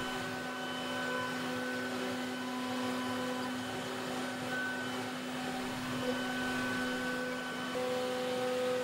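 Steady electric machine hum, with one constant low tone and fainter higher tones that come and go over a light hiss.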